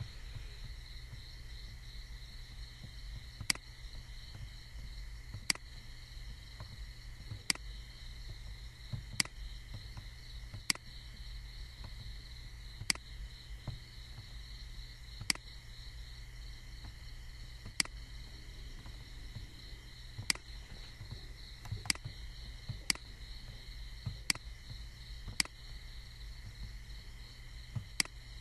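Computer mouse button clicking, single sharp clicks about every one to two seconds, over a steady high-pitched whine and a low hum.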